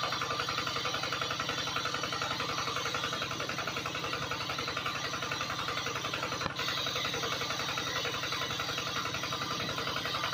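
Small motor of a miniature model water pump running steadily with a fast, even chugging buzz, briefly interrupted about six and a half seconds in.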